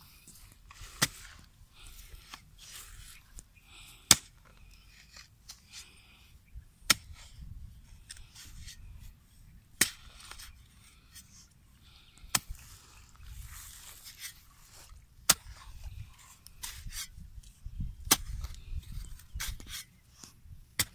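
Metal hoe blade chopping into hard clay soil: a sharp strike about every three seconds, eight in all, with softer scraping and crumbling of earth between the strikes.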